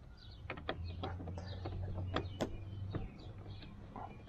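Light plastic clicks and taps as a hard plastic rear mudguard is pressed by hand into the slots of a wheel arch, over a low steady hum that fades out about three seconds in.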